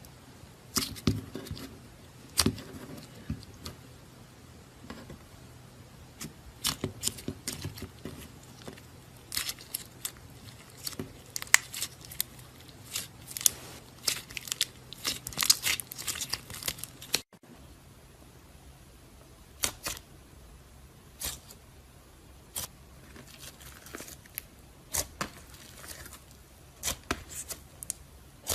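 Slime being squeezed and stretched by hand, giving irregular sticky clicks and crackles, with a brief break about two-thirds of the way through.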